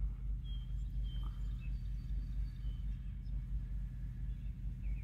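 Outdoor background: a steady low rumble, with a few short, high bird chirps scattered through.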